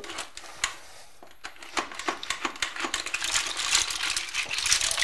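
Cooked mussel shells clicking and clattering against each other and the metal pot as they are stirred with a skimmer. A few scattered clicks, then a dense rapid clatter from about two seconds in.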